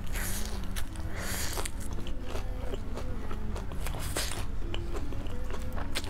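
Close-miked chewing of crunchy fried breaded food, with several louder crunching bursts in the first second and a half and again about four seconds in.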